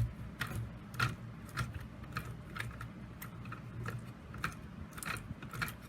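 EK Tools hand-cranked paper crimper being turned with paper feeding through its rollers: a regular click about twice a second over a steady low hum.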